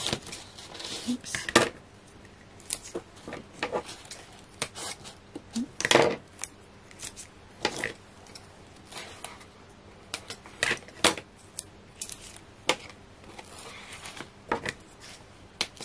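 Scissors snipping pieces of 3D foam tape, a string of irregular short, sharp snips and clicks.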